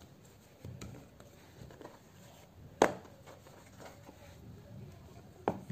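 Wooden rolling pin rolling pizza dough on a wooden cutting board, a soft low rumbling. A sharp wooden knock about three seconds in, as the pin is put down, and a second, lighter knock near the end as it is handled again.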